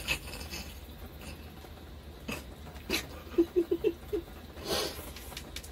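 A man chuckles in a quick run of about five short laughs, about three and a half seconds in, between a few sharp clicks and a short breathy burst.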